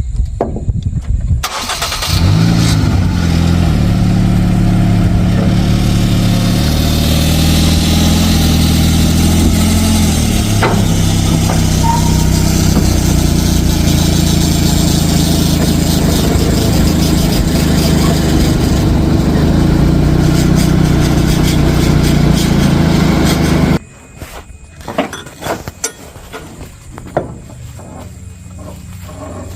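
A motor vehicle engine starts about a second and a half in and runs steadily for around twenty seconds, then cuts off suddenly; a few light knocks and clicks follow.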